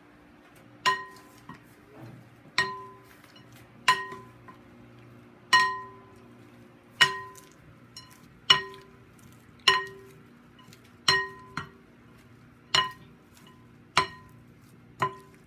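Two wooden salad spoons knocking against a glass mixing bowl as a salad is tossed. There are about eleven sharp knocks, roughly one every second and a half, and each leaves a brief glassy ring.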